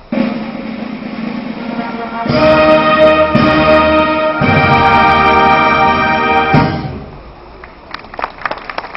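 Italian town wind band of brass and woodwinds playing: a softer passage, then loud held chords from about two seconds in, ending near seven seconds. Scattered applause starts near the end.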